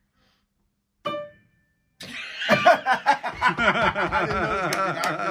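Grand piano strings sounded by hand inside the open piano: one short note about a second in that stops within half a second. From about two seconds in, a louder, continuous wavering pitched sound takes over.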